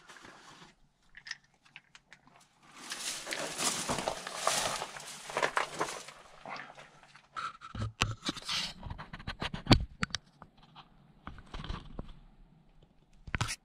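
Rustling and crunching of dry brush and loose rock as someone moves and crouches at a mine entrance, with a spell of louder rustling in the first half and scattered sharp clicks and knocks after it.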